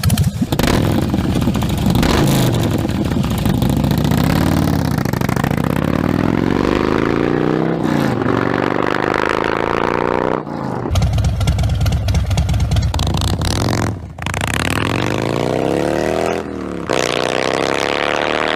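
Harley-Davidson V-twin motorcycle engines in a string of short clips with abrupt cuts between them: mostly revving and accelerating with rising pitch, and a stretch of steady, pulsing idle about halfway through.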